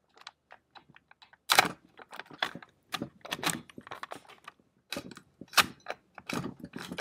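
Steel action parts of a SIG AK-53 rifle clicking and clacking as the cocking piece assembly is worked back and forth in the receiver: a string of sharp clicks and knocks in irregular clusters, the loudest about a second and a half in and again near the end. The assembly is binding and won't come out, which is put down to the charging handle catching on the bolt.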